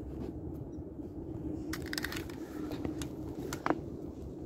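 A braided rope being pulled in by hand and laid on the tube of an inflatable PVC boat: a cluster of rustling, scraping clicks about two seconds in and a couple of sharper knocks near the end, over a steady low hum.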